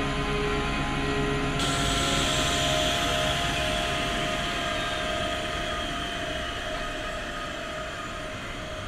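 Cabin noise inside a UH-72 Lakota helicopter cockpit: a steady turbine whine over a rushing rotor and airframe noise, slowly growing quieter. Music carries on for the first second and a half, then cuts out.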